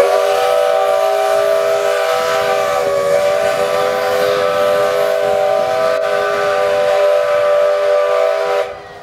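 Steam locomotive's whistle blowing one long steady blast of several pitches at once, lasting about eight and a half seconds and cutting off sharply near the end.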